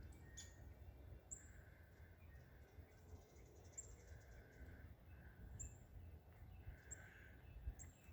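Faint wild bird chirps: short, very high single chirps repeating every second or two over a low rumble of outdoor background noise.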